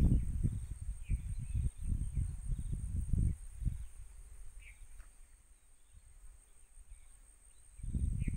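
A steady high insect drone runs throughout, with a few brief bird chirps. For the first three and a half seconds, irregular low rumbling buffets hit the microphone, then die away.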